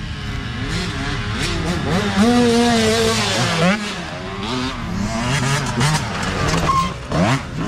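Small youth dirt bike engines revving as riders go past on a trail, the pitch climbing and dropping again and again with throttle and gear changes. One rev is held for about a second early on, and a quick rising rev comes near the end.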